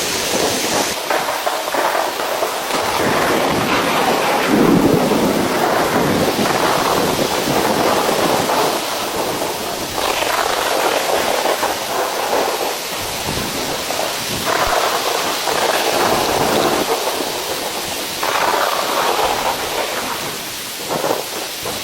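Heavy rain pouring steadily, its loudness swelling and easing in waves.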